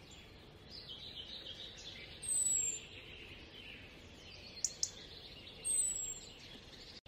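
Outdoor ambience with small birds chirping. The two clearest calls are short, high and falling in pitch, one about two seconds in and one near six seconds, over a faint haze of more distant calls. Two quick clicks come a little past the middle.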